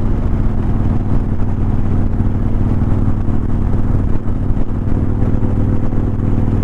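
Motorcycle engine running steadily while riding, at an even pitch, heard through a helmet chin-mounted camera.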